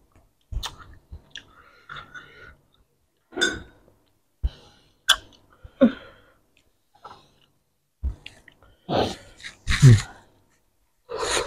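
Close-miked eating sounds of people eating roti canai with curry gravy by hand: chewing, wet lip smacks and finger-licking clicks. From about nine seconds in come a few louder breathy exhales with short low hums that fall in pitch.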